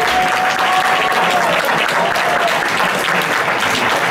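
Congregation applauding steadily in response to the preacher, with one voice calling out in a long held cry over the first couple of seconds.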